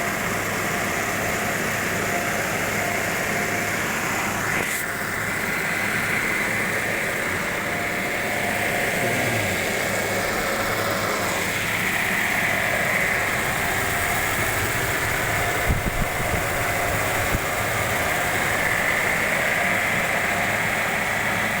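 Car engine idling steadily under a constant hiss, with a few short knocks about three quarters of the way through.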